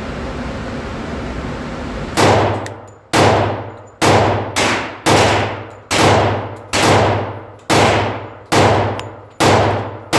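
Glock 20 pistol in 10mm Auto firing Federal Fusion 200-grain loads, a steady string of about ten shots roughly a second apart starting about two seconds in, each shot ringing out in the echo of an indoor range.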